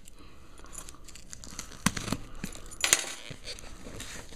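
Hands handling a cardboard subscription box and its packaging, with light rustling and a few sharp knocks and clicks, the strongest about two and three seconds in.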